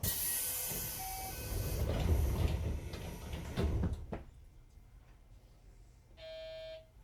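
Commuter train doors closing: a sudden hiss of air, rumbling and knocking for a few seconds, then a sharp thud about four seconds in. Near the end a short electric buzzer sounds for under a second.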